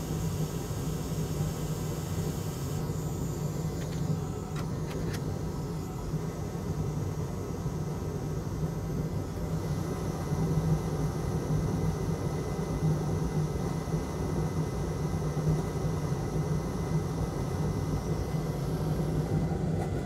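Steady low hum and rumble of a fan-driven bench machine, with a couple of faint clicks about four to five seconds in.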